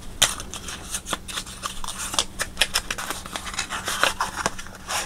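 Hands handling a small cardboard playing-card box and sliding its tray open: thin card scraping and rubbing, with many small irregular clicks and taps.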